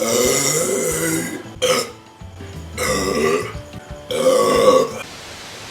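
A person burping loudly four times in quick succession: a long belch first, then a short one, then two more of about a second each.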